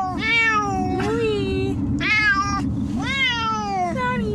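Cats meowing in their carriers inside a moving car: about four long, drawn-out meows in a row, each falling in pitch, over a steady low road rumble. Plaintive crying of unhappy cats shut in carriers for a car ride.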